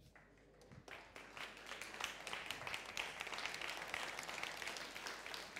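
Audience applauding: many hands clapping, starting thin and swelling to a steady, dense applause about a second in.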